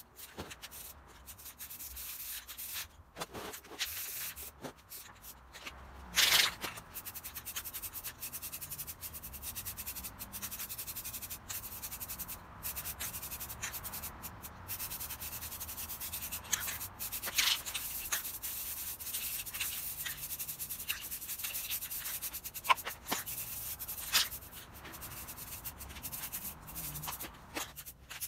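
Aerosol spray-paint can hissing in long bursts with brief pauses as paint is sprayed onto cast-iron vise parts. A few sharp knocks and clicks from handling, the loudest about six seconds in.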